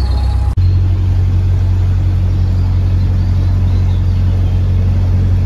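Narrowboat's diesel engine running steadily at low speed, a deep even drone, with a brief break about half a second in.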